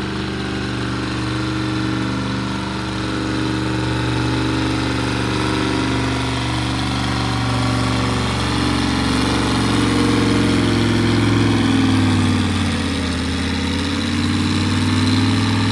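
Massey Ferguson tractor's diesel engine running hard under load as it pulls a weight-transfer sled. Its pitch sags late on as the load builds, then climbs again.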